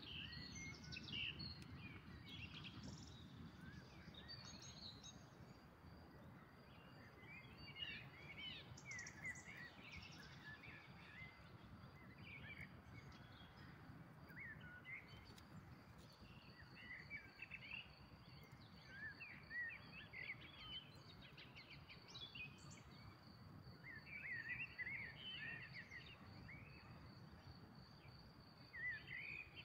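Small birds chirping and calling on and off, faint, over a steady high thin trill and a low background rumble.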